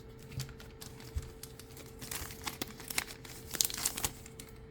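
Crinkling and rustling of a foil trading-card booster pack being handled, in two short bouts of quick crackles, about two seconds in and again about three and a half seconds in.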